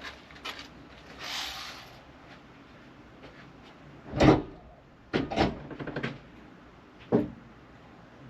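A run of separate metallic clicks and knocks, the loudest about four seconds in and a cluster a second later, as the battery cable is handled and its terminal clamp worked with an 8 mm wrench.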